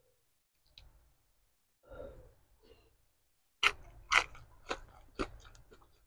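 A person biting into and chewing crisp lettuce leaves. Soft mouth sounds come first, then from about halfway a run of sharp, wet crunches, about two a second, the first two the loudest.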